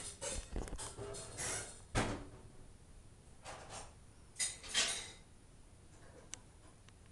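Scattered household knocks and clatter, like drawers and doors, with the sharpest bangs about two seconds in and a pair around four and a half seconds in.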